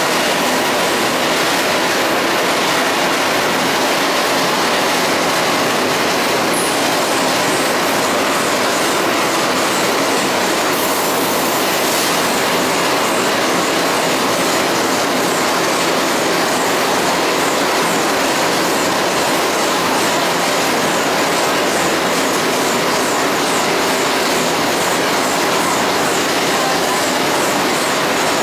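Industrial washer extractor running, its drum turning a load of laundry in water: a steady, loud rushing noise that does not let up.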